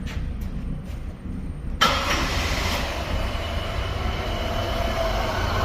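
Car engine starting about two seconds in and then running steadily. The engine is misfiring on cylinder 2, a fault later traced to an internally shorted ignition coil.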